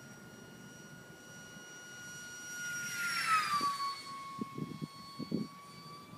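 Radio-controlled model airplane making a low pass: a high motor whine swells and drops in pitch as it goes by, about three seconds in, then carries on lower and quieter as it climbs away. A few low knocks near the end.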